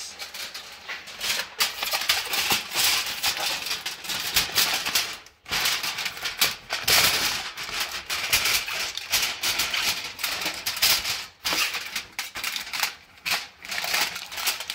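Aluminium foil crinkling and crackling as it is folded and crimped tightly around a rack of elk ribs to seal it. The crackle is near-continuous, with brief pauses about five seconds in and about eleven seconds in.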